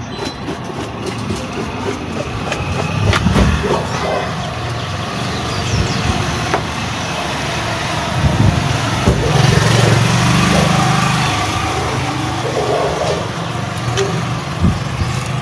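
An engine running steadily, swelling louder for a few seconds near the middle.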